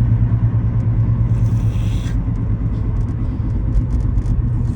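Steady low drone of engine and road noise inside a moving car, with a brief hiss about a second and a half in.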